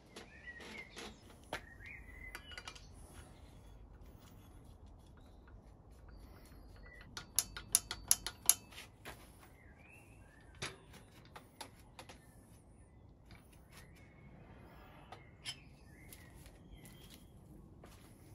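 Sharp metallic clicks and taps of bicycle parts being handled and fitted, as the rear derailleur and rear wheel go onto the frame, with a quick run of about six loud clicks a little before halfway. Small birds chirp now and then in the background.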